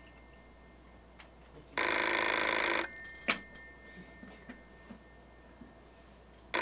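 Telephone ringing: one ring about two seconds in, lasting about a second and fading off, and the next ring starting right at the end.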